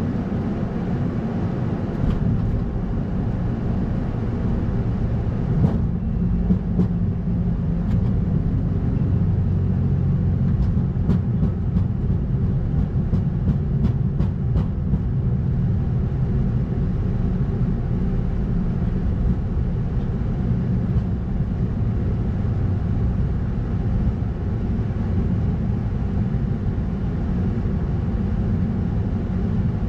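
Steady low rumble and hum on the Airbus A220-100's flight deck as the jet taxis, its Pratt & Whitney PW1500G geared turbofans at idle. A few faint clicks come through about midway.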